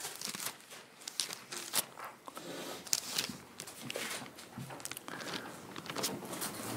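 Thin Bible pages being leafed through and handled: irregular soft rustling with small crackles and ticks of paper.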